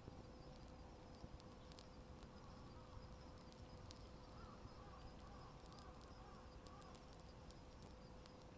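Wood fire crackling softly, with scattered sharp pops and ticks over a low steady rumble; a faint wavering sound comes in the middle.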